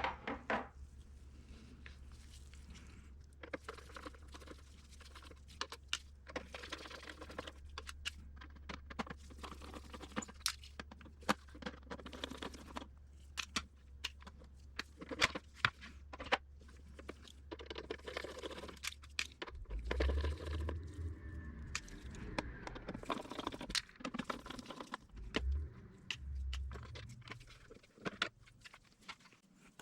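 Plastic parts of a Camtono prop being handled and pried apart during disassembly: many sharp clicks, scrapes and crunches at irregular intervals.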